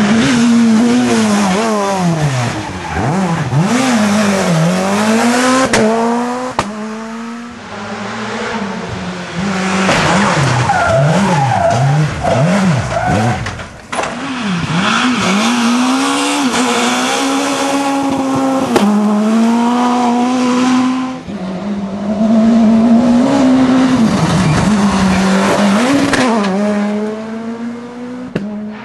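S2000 rally cars, among them Škoda Fabia S2000s with their high-revving 2.0-litre naturally aspirated four-cylinder engines, passing at full attack one after another. The engine note climbs and drops sharply again and again with gear changes and lifts into corners, and the sound breaks off abruptly at each cut to the next car.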